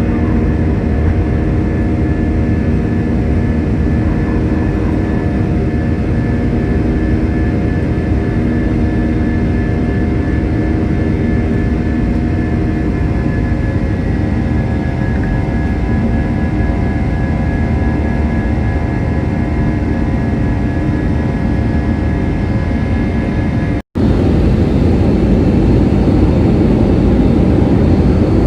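Airliner cabin noise: a steady low rumble of jet engines and airflow, with several steady whining tones over it. There is a sudden break about 24 seconds in, after which the rumble is louder and rougher.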